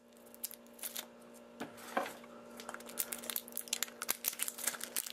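Clear plastic tape being peeled off a plastic vending-machine capsule, crackling in many small sharp snaps that come thicker toward the end, over a faint steady hum.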